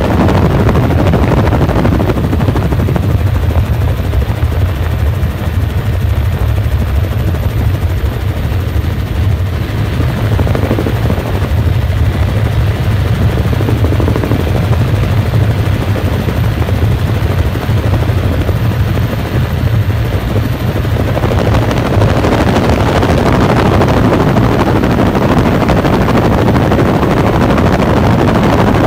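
Helicopter in flight, its rotor and engine running steadily with a strong low thrum and a rushing noise over it. The rushing grows louder and brighter about three quarters of the way through.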